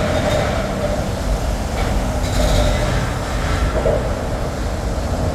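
Jackhammer breaking up a wall: a steady, rapid hammering with a deep rumble.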